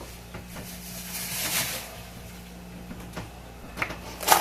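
Faint rustling and small knocks of frozen food bags being moved about in a chest freezer, with louder plastic-bag crinkling starting near the end, over a steady low hum.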